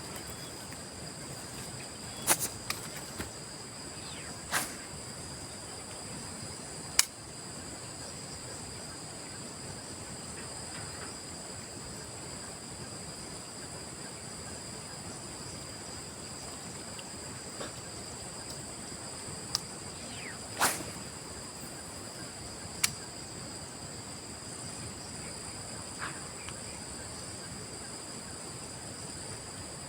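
Insects chirring steadily in two high-pitched bands, with a handful of short sharp swishes and clicks, the loudest about twenty seconds in.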